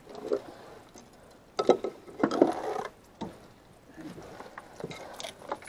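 Scattered clicks, knocks and rustles of fishing tackle being handled while a hook and line are rigged, loudest in a short cluster about one and a half to three seconds in.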